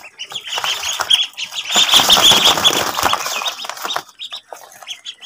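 A brood of ducklings peeping, many short high calls overlapping. A louder stretch of scuffling noise comes between about two and three seconds in. The calls thin out after about four seconds.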